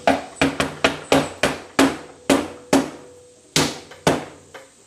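Soft-faced mallet tapping a tight assembly pin into the Centurion gun's receiver: about a dozen sharp knocks at two to three a second, with a short pause just past halfway. The pin needs persuasion to go in.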